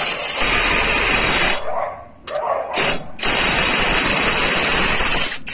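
Topshark TS-PW1 18-volt cordless impact wrench hammering on a car wheel's lug nut in two long runs, with a break about two seconds in, working the nut loose.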